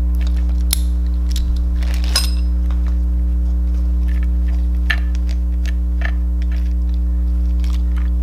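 Scattered light clicks and taps as 3D-printed plastic gears and a hand tool are handled in a metal gearbox tray while the gears are pulled off their shafts, the sharpest about two seconds in. Under them runs a loud, steady electrical hum.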